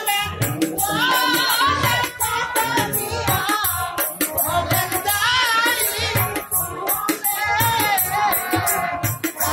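Live folk singing: a voice carries a wavering, ornamented melody over a barrel drum and jingling hand percussion keeping a steady beat.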